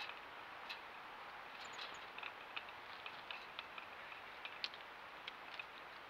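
Light, irregular ticks and taps, several a second, of a small bird pecking at peanuts through the metal mesh of a tube feeder, over a steady hiss.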